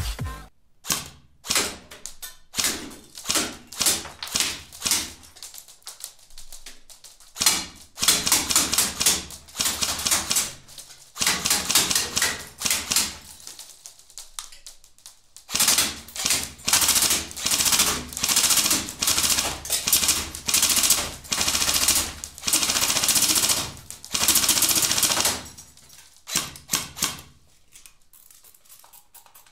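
G&G Armament airsoft M4 electric rifle firing: single shots in the first few seconds, then long fully automatic bursts of rapid clicking from the gearbox cycling, and a few more single shots near the end.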